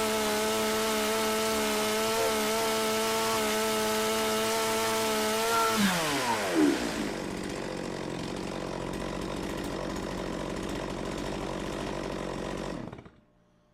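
Stihl MS270 two-stroke chainsaw engine held at high revs for about six seconds, then let off so the pitch drops to a steady idle, then switched off near the end. It is freshly tuned and runs smoothly at both speeds.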